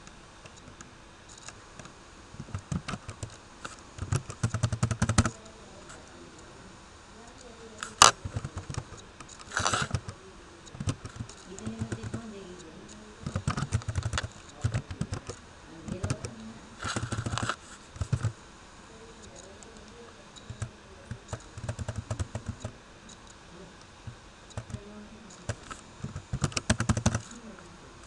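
Typing on a computer keyboard in short bursts of keystrokes with pauses between, and one sharper, louder click about eight seconds in.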